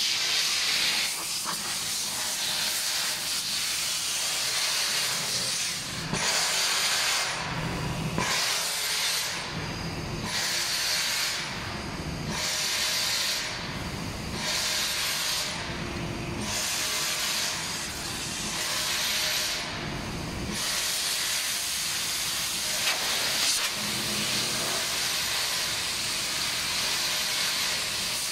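Compressed air hissing steadily as the powder hopper is blown clean during a powder-coating color change. From about six seconds in to about twenty seconds, the air pulses on and off regularly, roughly once every second and a half.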